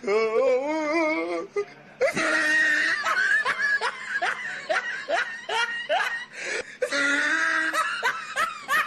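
Loud, hearty laughing, a long string of 'ha' bursts at about two a second, with music underneath.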